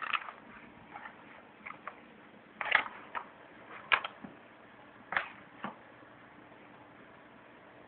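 A handful of short, light knocks and clicks at irregular moments over the first six seconds.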